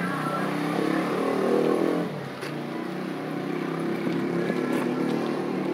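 A motor vehicle's engine running close by, loudest over the first two seconds and then easing off slightly.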